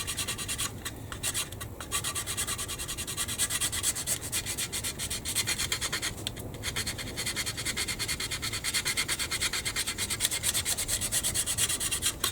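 Hand sanding of a plastic model-kit part to ease a tight fit: quick back-and-forth scratchy strokes, about four a second, with a few short pauses.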